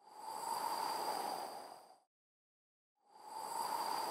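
An airy whoosh sound effect that swells and fades over about two seconds, then a second one begins about a second later near the end.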